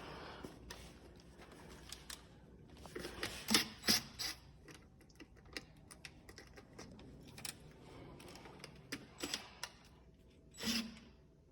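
Irregular clicks and light knocks of parts and tools being handled, with louder rustling scrapes about three and a half seconds in and again near the end.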